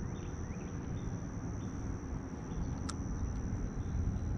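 Insects keep up a steady high-pitched drone over a low rumble, with one sharp click about three seconds in.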